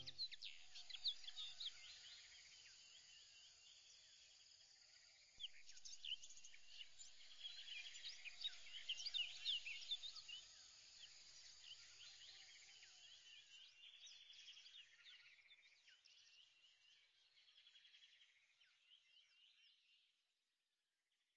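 Faint bird chirping: many short high calls overlapping, dying away to silence near the end.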